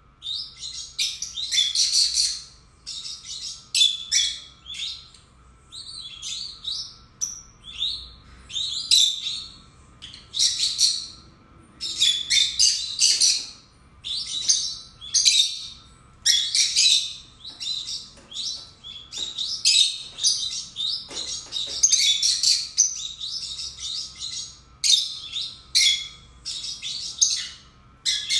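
Two pet peach-faced lovebirds chirping and chattering: rapid, shrill, high chirps in irregular clusters, one after another, with short breaks between them.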